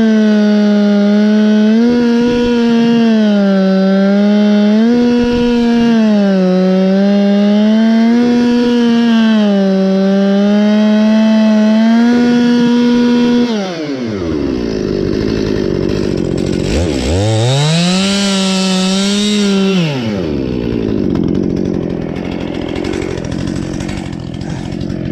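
Two-stroke chainsaw at full throttle cutting along a log in a chainsaw mill, its pitch sagging under load and recovering every couple of seconds. About halfway through the throttle is released, the engine drops off, revs up briefly once more, and then idles.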